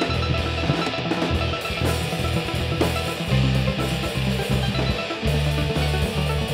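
A rock band playing live: drum kit, guitar and bass in an instrumental passage, with no vocals.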